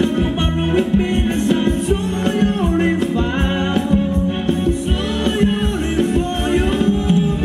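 Live band playing Thai ramwong dance music, a steady drum beat under a melody, with a voice singing over it.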